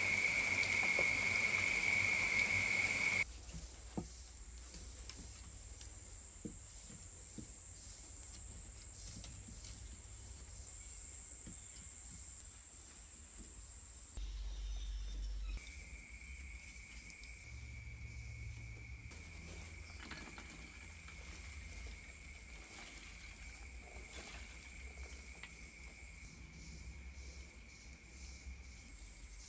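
A steady, shrill chorus of insects, with a second, lower steady tone joining it for part of the time. The chorus shifts abruptly several times. Faint clicks and taps of wooden sticks being handled and stacked come through underneath.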